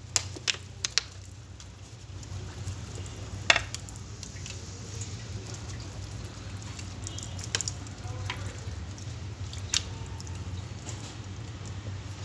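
Steady low hum with a few sharp clicks and taps scattered through it, the loudest about three and a half seconds in: small metal parts of a dismantled automatic transmission being handled.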